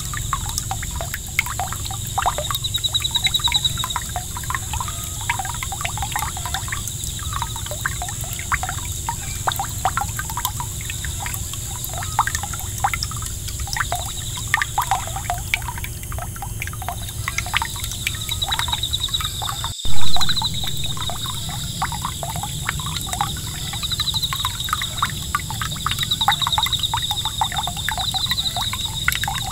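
Water from a small 5 V solar fountain pump's jet splashing and trickling back onto the pond surface, a steady patter of droplets. One loud thump about two-thirds of the way through.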